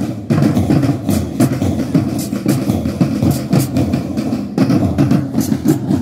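School marching band drums beating a steady, fast parade rhythm.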